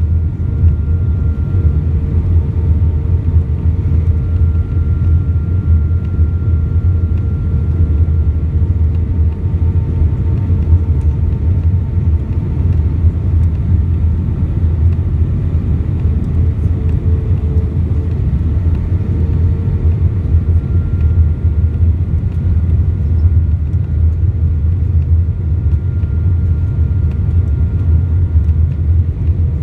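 Steady cabin noise inside an Airbus A319 airliner: a loud, even low rumble of airflow and engines, with faint steady engine tones over it that shift slightly in pitch.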